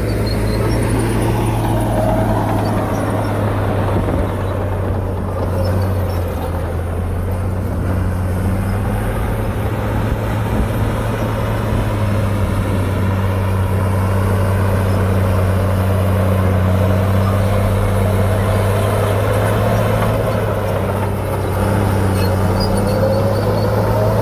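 Heavy diesel earthmoving machine running steadily, a constant deep engine drone. A higher note rises and falls briefly about two seconds in and again near the end.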